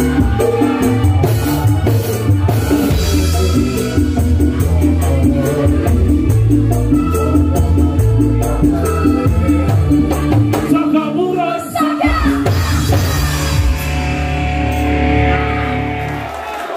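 Live campursari band playing loudly through a big sound system: Javanese kendang hand drums, cymbals and keyboards over heavy bass. The music cuts off just before the end.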